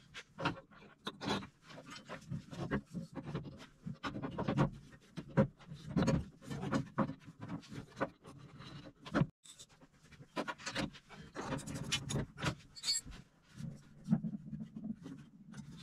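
Horn and steel mounting bracket being handled into place against the car's frame, with a bolt being fitted: irregular light clicks, knocks and scrapes of metal on metal.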